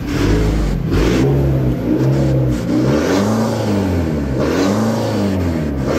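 Pickup truck engine revved several times through its aftermarket exhaust, the pitch rising and falling with each rev. The exhaust has just been repaired and no longer leaks.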